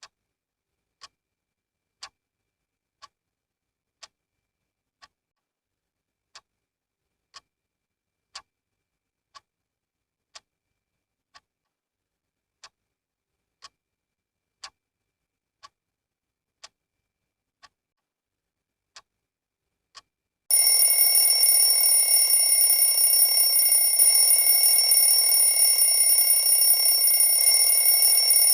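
A clock ticking, about twenty ticks at one per second. About twenty seconds in, an alarm starts ringing loudly and continuously, with several steady tones.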